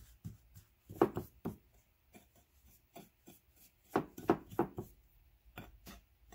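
A metal spoon pressing and scraping crumbly cookie-crumb crust into a pie dish: a run of short scrapes and taps, in clusters about a second in and again around four seconds in.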